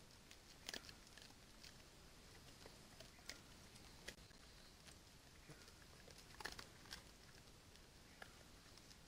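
Faint, scattered clicks and rustles of an agouti foraging in dry leaf litter at a corn bait, its feet and snout working the leaves and kernels, over near-silent forest background.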